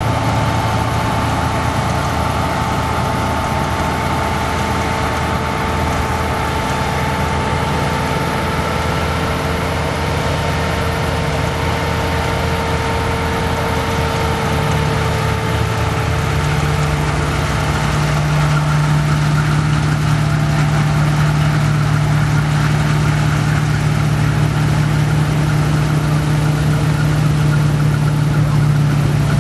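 Bizon Gigant combine harvester running while harvesting, a steady engine drone with a higher steady whine. The whine fades about halfway through, and the drone grows louder as the combine turns and comes closer.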